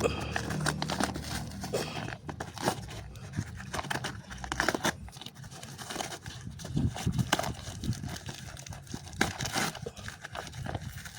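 Plastic packaging being unwrapped by hand: irregular crinkling, crackling and tearing of plastic wrap and tape.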